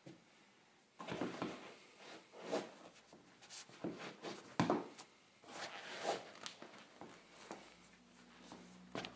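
Socked feet working their way into a pair of Nike Air Max 2013 sneakers: a string of irregular rustles, scuffs and soft knocks. A faint low hum comes in near the end.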